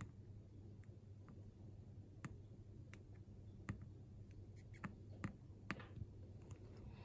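Faint, scattered small ticks and crackles from a TS100 soldering iron's TS-K tip working the flux-covered pins of a TSOP-44 chip, over a steady low electrical hum.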